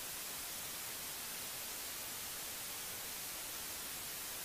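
Steady hiss of analogue television static.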